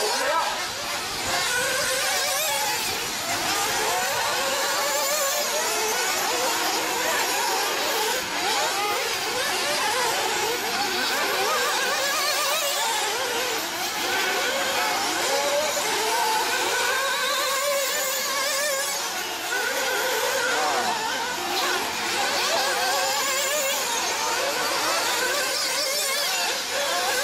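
Several nitro RC buggy engines running at once, buzzing and revving, their whines constantly rising and falling in pitch as the cars accelerate and brake.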